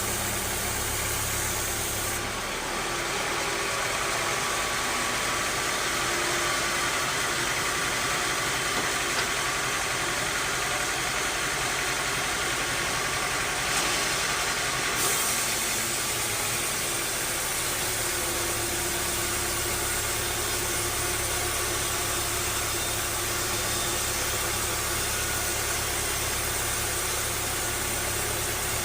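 Bandsaw sawmill running: a steady mechanical noise from the machinery, its tone shifting about two seconds in and again around the middle.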